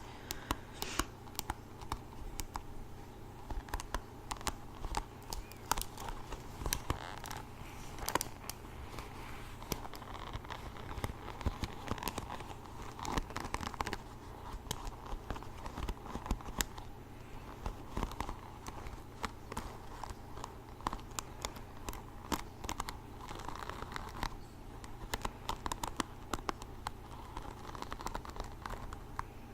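Close-up irregular clicking and scratching, several small ticks a second over a faint rustle, going on without a break.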